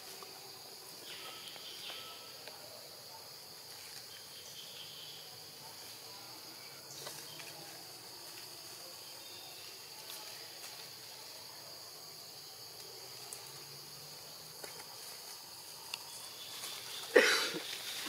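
Insects droning steadily at a high pitch outdoors. About a second before the end comes one short, loud, sharp sound.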